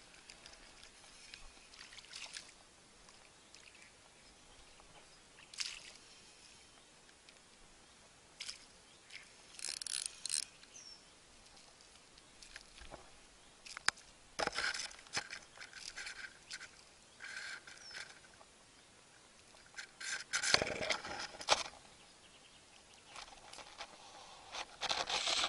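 Scattered short rustles and splashy handling noises over a quiet background, as a small fish is reeled in on a spinning rod and a crankbait and then handled.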